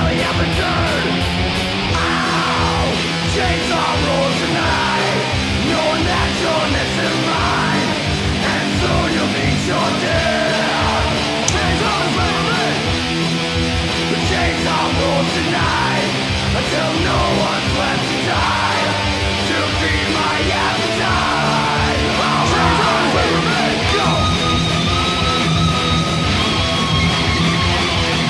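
Thrash metal song: heavily distorted electric guitars and bass playing fast and loud, with shouted vocals.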